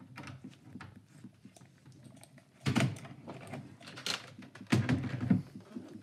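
Handling noise of a plastic computer mouse and its cable being moved about and set down: a few sharp knocks and rustles, the loudest about two and a half seconds in and again around four to five seconds in.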